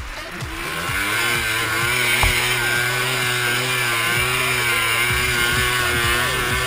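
Sport quad (ATV) engine running under the rider, its pitch wavering as the throttle is worked, getting louder about a second in.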